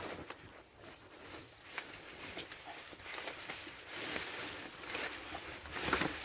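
Quiet scattered rustling with a few light clicks: the leaves and branches of a notched tree shaking as it is pulled on a rope, just before it falls.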